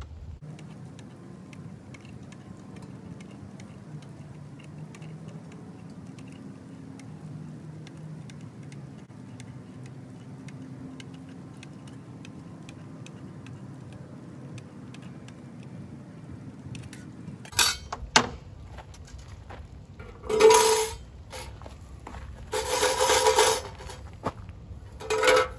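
Tin snips clicking faintly as they trim the edge of a tin can lid. Then, from about two-thirds of the way in, five loud metallic clanks and scrapes, the longest about a second, as the trimmed lid is worked into a No. 10 tin can as a raised floor.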